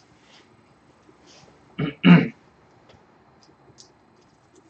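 A person clearing their throat: two short, rough sounds close together about two seconds in. Faint light clicks of parts being handled come before and after.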